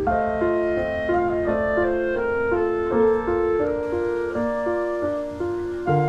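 Background instrumental music: a melody of evenly paced, held notes over a lower sustained line.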